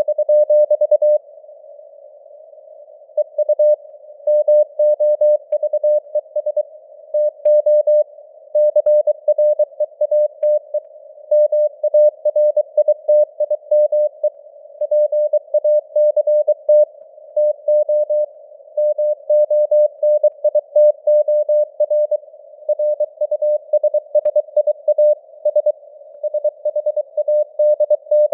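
Morse code sent at 23 words per minute as a keyed tone of about 600 Hz, in rapid dots and dashes. The tone rides on a narrow hiss of simulated radio band noise, and its strength varies as it fades (QSB). There is a pause of about two seconds near the start.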